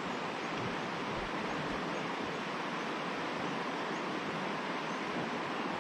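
River water rushing steadily over its bed, an even hiss with no change.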